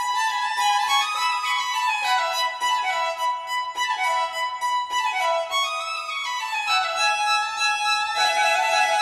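Background music led by a violin, playing a melody with notes that slide downward every couple of seconds.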